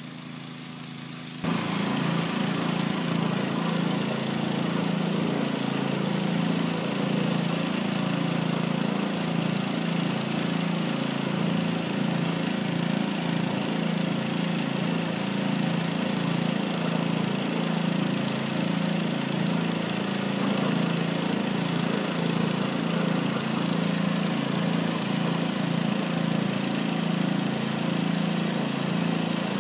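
Small gasoline engine of a sewer jetter (pressure washer) running steadily under load, with an even pulsing beat; it becomes abruptly louder about a second and a half in.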